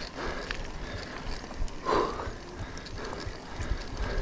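Mountain bike being ridden over a rough dirt trail: uneven rattling and knocking from the bike over bumps, with low rumble and a louder burst about two seconds in.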